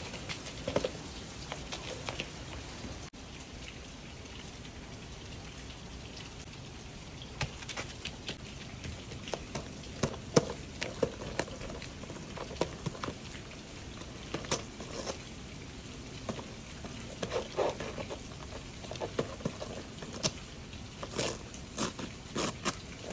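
African pied crow pecking and tearing at a foil-wrapped gift box: irregular crinkling and rustling of wrapping paper, busier in the second half, over a steady hiss of light rain.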